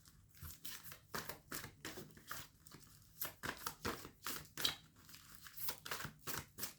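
Tarot cards being shuffled and handled: a run of quick, irregular papery clicks and rustles.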